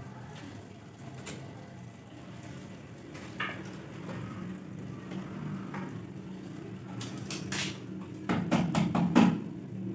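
Handling sounds from measuring a plywood cabinet opening with a steel tape measure: scattered light clicks, then a run of sharp clicks and knocks about seven to nine seconds in as hands touch the plywood panel, over a steady low hum.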